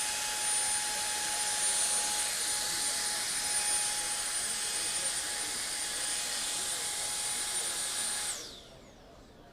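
TOPCAT Thanos A-1 electric fog gun firing one continuous burst: its high-speed fan makes a steady rushing blast with a high whine, and it cuts off about eight and a half seconds in.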